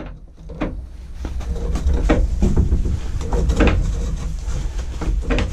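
Toilet paper being pulled off a roll in a portable toilet's plastic wall dispenser: repeated rustles and knocks of paper and roll against the plastic, over a heavy low rumble.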